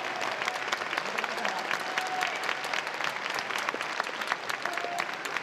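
Ballpark crowd applauding after a hit, a dense patter of many separate hand claps, with a few faint drawn-out calls over it.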